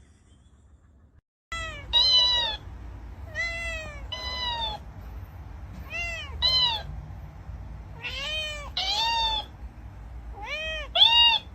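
A cat meowing over and over, in quick pairs of calls, each call rising then falling in pitch.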